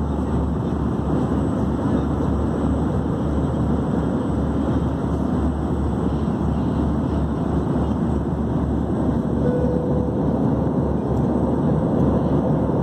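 Steady roar of engine and airflow noise inside the cabin of an Airbus A321 climbing after takeoff.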